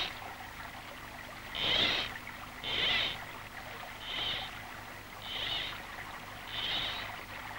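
Split-cane fly rod and line swishing through the air in repeated false casts: five short hissing swishes, about one every second and a quarter, over a faint trickle of the stream.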